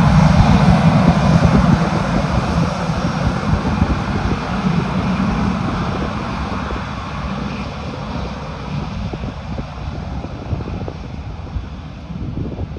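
Twin-engine jet airliner's engines running on its landing rollout: a loud rushing rumble that fades steadily as the plane slows and moves away down the runway.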